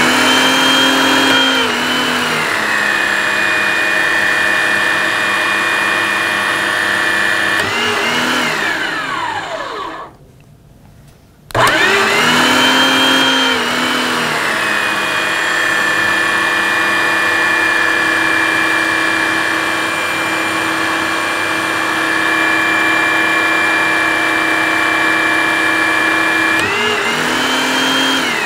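Electric hydraulic pump driving a hydraulic torque wrench, building pressure toward about 8,000 psi. It runs twice, split by a pause of about a second and a half in the middle; each run's motor pitch sinks as the load comes on, holds steady, then rises briefly before the motor winds down.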